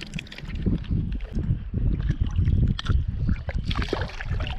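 Shallow saltwater splashing and sloshing around the angler's hands and landing net while a small spotted seatrout is handled, with wind rumbling on the microphone.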